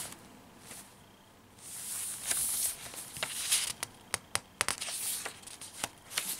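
Paper pages of a handmade junk journal being turned and pressed flat by hand: rustling and crinkling with many small sharp crackles, starting about two seconds in after a short quiet spell.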